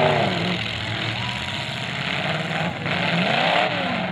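Several demolition-derby cars' engines running and revving at once, their pitch swelling up and falling a few times over a steady dense noise.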